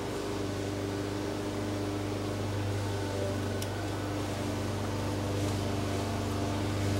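Steady low machine hum from a motor running in the background, with one faint click about three and a half seconds in.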